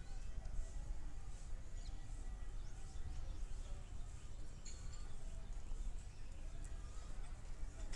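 Several birds chirping and calling faintly, short scattered notes and warbles, over a steady low rumble of outdoor background noise.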